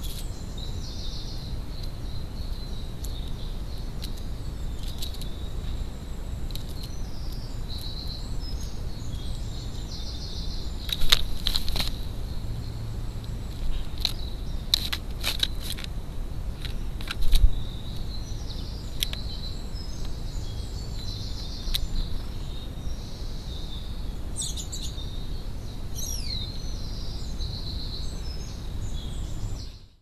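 Small birds chirping and singing over a steady low rumble of outdoor noise. A few sharp clicks come about a third and halfway through, and a single whistled call falls in pitch near the end.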